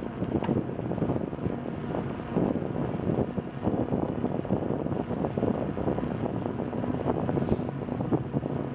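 Wind buffeting the microphone of a moving bicycle, mixed with the tyres rolling on asphalt: a steady rushing noise with frequent small knocks and rattles from the ride.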